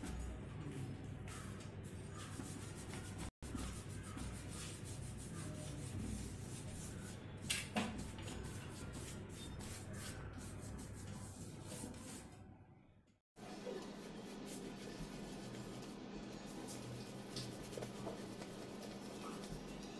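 Pencil and paintbrush strokes scratching and rubbing across a sheet of paper. The sound drops out briefly about three seconds in and cuts out near thirteen seconds, after which the strokes go on over a steady low hum.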